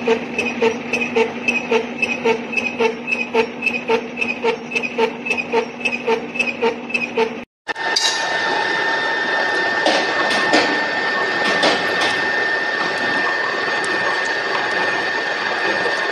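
Metal cutting on machine tools. First a spindle-mounted cutter cuts into steel plate, a steady hum with a rhythmic knock about three times a second. Then, after a brief break, a pair of disc milling cutters slots a round steel bar, a steady high whine with chip noise and a few sharp clanks.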